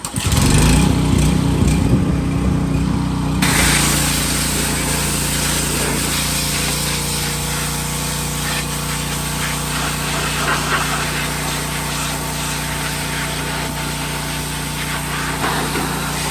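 Pressure washer running with its pump humming steadily while the water jet sprays hard against the sheet metal of an empty engine bay, blasting off degreaser and grime. The spray's hiss shifts about three and a half seconds in, as the jet moves onto a different surface.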